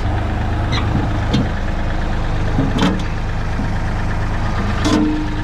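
Tractor engine running steadily, with a few sharp metallic knocks about a second, three seconds and five seconds in as scrap is handled with the bucket.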